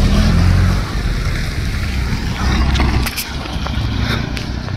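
Wind buffeting the microphone in thick blowing cloud: a loud, uneven low rumble that eases after about three seconds, with a few sharp clicks near the end.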